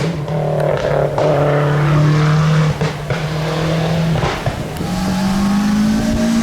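A rally car's engine running at high revs on the stage. The note holds steady, breaks briefly with a pop at each of several gear changes, then climbs in pitch near the end.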